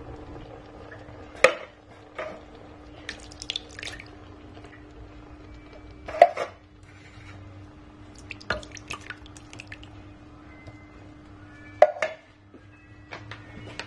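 Canned tomatoes being poured from their cans and plopping wetly into a stainless steel pot, with three sharp knocks about five seconds apart and smaller clicks and drips in between.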